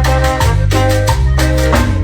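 Live band playing an instrumental passage of Latin dance music, with bright keyboard or mallet-like notes over bass and a steady beat; no singing.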